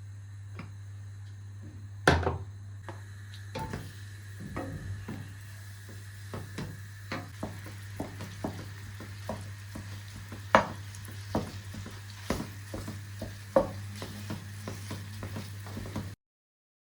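A utensil stirring in a pot or pan, knocking and clicking against it at an irregular pace, over a steady low hum. One louder knock comes about two seconds in, and the sound cuts off suddenly near the end.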